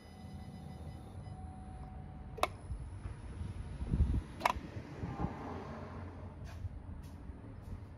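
Car's ignition keyed on before starting: a low hum with two sharp clicks about two and a half and four and a half seconds in, a dull thump just before the second, and a few fainter ticks later. The newly fitted 103 mm throttle body makes no rapid chattering.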